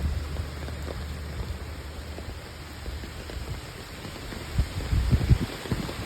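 Steady rain falling in a passing storm, with a low gusting rumble that swells to its loudest about a second before the end.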